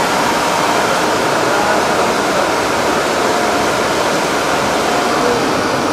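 Steady, loud rushing hiss of a grilled-eel production line at work: the grilling machine running as glazed eel fillets travel on its wire-mesh conveyor belts.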